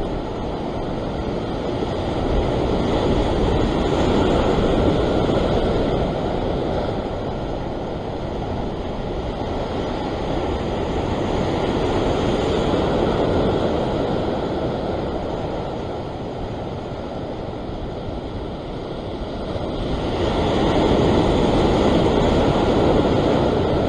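Rough sea surging and washing white over the rocks below, with wind rumbling on the microphone. The surf swells louder three times: a few seconds in, around the middle, and near the end.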